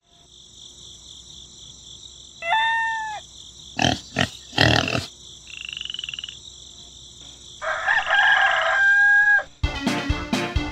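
Farm animal ambience: a steady high-pitched chorus of frogs, with calls, knocks and a loud crowing call over it. Upbeat music starts about nine and a half seconds in.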